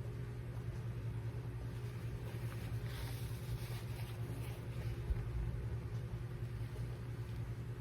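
A steady low hum with faint mouth noises of someone chewing a bite of pizza in the middle.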